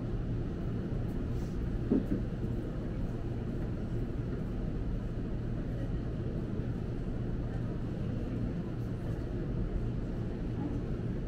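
Steady low rumble of a large store's indoor ambience, with a faint murmur of distant voices and faint taps from a laptop keyboard being typed on. A single brief knock sounds about two seconds in.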